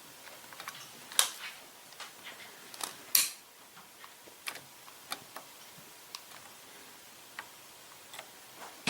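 Scattered light clicks and taps of small tools and wire being handled on a workbench, with two sharper clicks about a second and about three seconds in.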